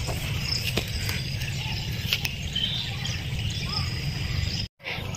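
Outdoor ambience: scattered faint high chirps over a steady low rumble, with a brief dropout near the end.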